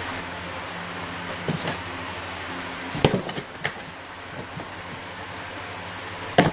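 Scattered knocks and bumps on a cardboard box as a cat inside it swats and pushes at another cat's tail, over a steady background hiss and low hum. A few knocks come about a second and a half in and around three seconds, and the sharpest pair comes near the end.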